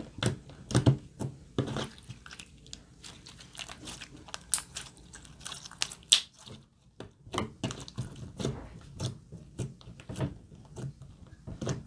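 Glossy slime being pressed and squished by hand on a table: irregular sticky clicks and pops as the fingers push in and pull away, with a brief pause a little past halfway.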